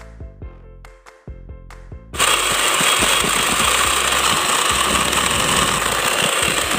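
Background music with a drum beat for about two seconds, then a handheld electric mixer cuts in loudly. Its motor and beaters run steadily as they whip eggs and sugar into a thick, pale foam.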